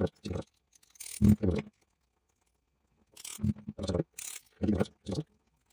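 Small metal lock parts being handled: tweezers and steel pins clicking and rattling against a Eurospec MPX6 euro cylinder as it is taken apart, in short irregular bursts with pauses between.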